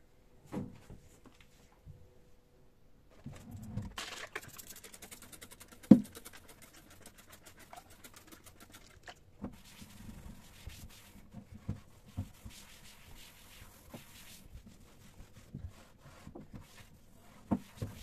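Damp cloth rubbing and wiping across the inside of a laminated kitchen drawer, a scratchy rubbing that comes and goes. A few knocks against the drawer punctuate it, the loudest a sharp knock about six seconds in.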